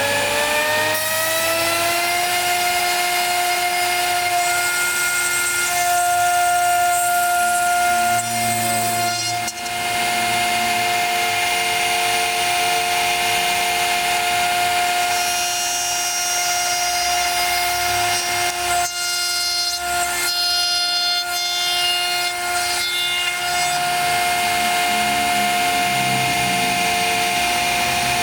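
CNC router spindle whining and rising in pitch as it comes up to speed over the first two seconds, then holding a steady high whine while the bit cuts MDF. Shorter tones come and go in the middle.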